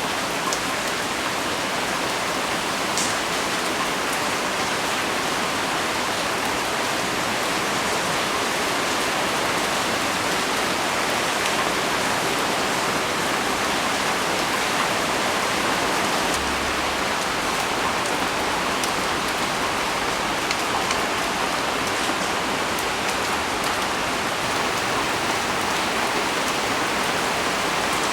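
Heavy rain pouring down steadily, drops pattering on leaves.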